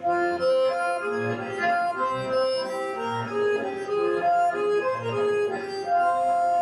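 Accordion music playing: a melody of held, changing notes over intermittent bass notes.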